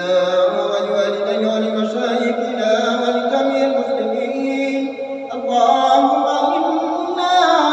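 A man's voice chanting a supplication prayer in long, drawn-out melodic phrases, with a brief break about five seconds in.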